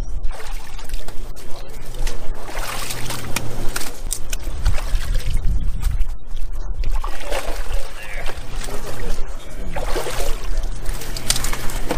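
Water splashing and sloshing in a plastic tub as hands scoop live bass out of it into a bag, with irregular splashes and drips.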